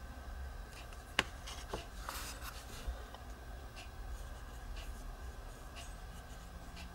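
Hands handling the small parts of an Innokin Ares 2 vape tank: light rubbing and scraping, with a sharp click about a second in and a fainter click shortly after.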